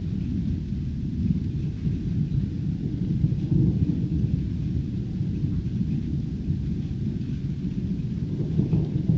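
Thunder from a nearby storm rumbling on without a break, swelling about three seconds in and again near the end, with faint rain in the background.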